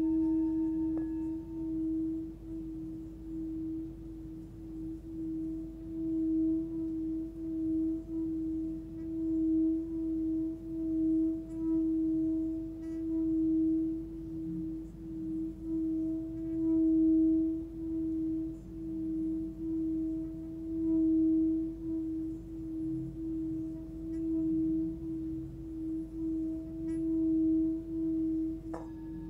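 Hammered Full Moon singing bowl, 14.3 cm, sounding a steady tone near 320 Hz (between D# and E). It starts with a strike, then sings as the wooden stick is rubbed around its rim, the tone swelling and fading about once a second. It is struck again near the end.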